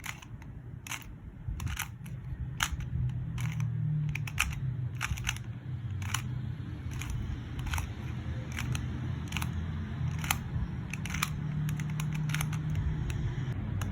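QiYi 2x2 speed cube being turned face by face through the T-perm algorithm: a run of sharp plastic clicks, one or two a second, at an uneven pace.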